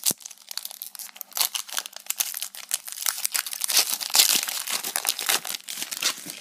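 Foil Pokémon booster pack wrapper being torn open and crinkled in the hands: a dense, unbroken run of crackling rustles.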